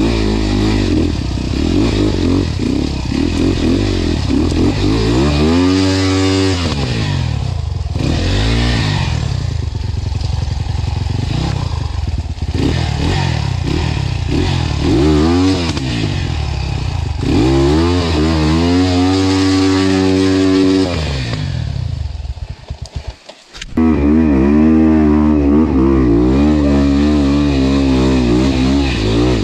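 Enduro dirt bike engine revving up and down again and again as its rear wheel struggles in ruts too deep to ride out of, with clattering from the bike. About three-quarters of the way through the engine sound drops away to a few sputters, then comes back abruptly.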